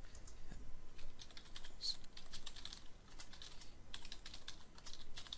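Computer keyboard typing: quick, irregular key clicks in short runs, with a brief pause about halfway through.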